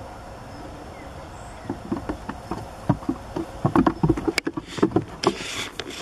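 Goat hooves knocking and clattering on wooden bench planks: after a steady background hum, an irregular run of sharp knocks and thumps sets in a little under two seconds in, then rustling near the end.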